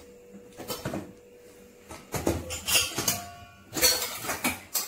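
Metal kitchen utensils clinking and clattering, starting about two seconds in, with one piece ringing briefly.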